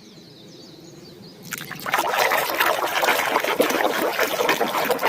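Water trickling and splashing over a muddy plastic animal toy as it is rinsed clean. It starts about one and a half seconds in after a brief lull, then runs on steadily.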